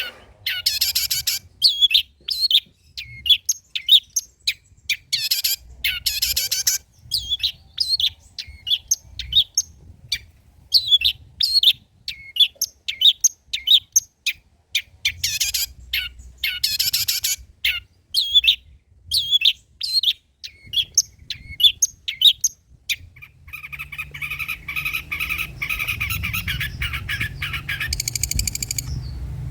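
Long-tailed shrike singing its varied mimicked song: short bursts of rapid, high, harsh chattering phrases with brief pauses, then near the end one longer continuous trill.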